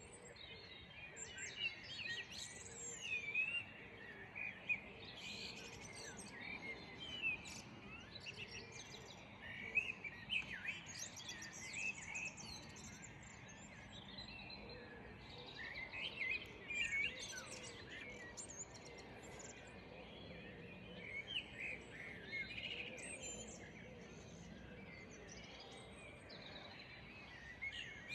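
Small garden songbirds chirping and singing in short, varied phrases, with a faint steady background noise beneath.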